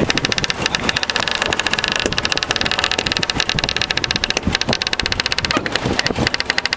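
Engine running steadily with a fast, even pulse.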